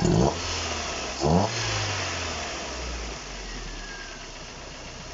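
Car engine blipped twice, its revs rising then sinking slowly back to a steady idle. As it revs, the engine's drive belt bounces and flops, which it shouldn't do.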